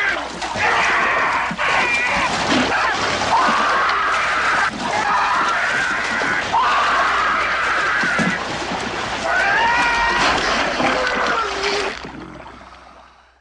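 Film soundtrack: a man screaming in agony in a string of long, drawn-out cries as a great white shark's jaws clamp on him, over water splashing and sloshing on a boat deck. The sound fades out near the end.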